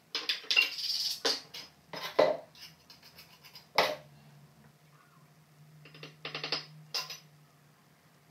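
Clinks and knocks of hard objects on porcelain tile as a metal spirit level and tile pieces are handled and set down, coming in short clusters, some with a brief ringing tail.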